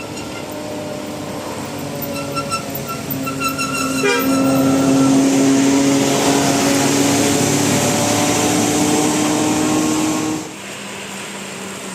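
Tour bus's telolet horn playing: a quick run of short high notes, then a long, loud held horn chord of several notes for about six seconds that cuts off suddenly.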